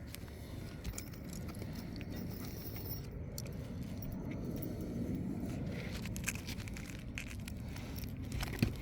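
Scattered light scrapes and clicks of hand work on asphalt roof shingles, over a steady low rumble.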